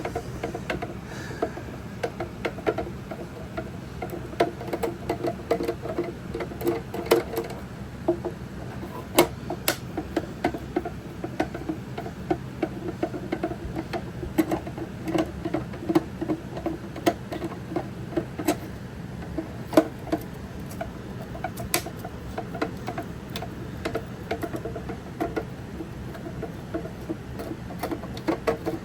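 Screwdriver backing screws out of an old plastic speaker enclosure: a run of rapid, uneven grinding clicks with sharper clicks now and then, over a steady low hum.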